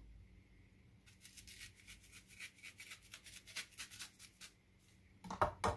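Kitchen knife slitting a leek stalk lengthwise, a run of quick, soft, crisp cuts through the layers, then two louder knocks on the wooden cutting board near the end.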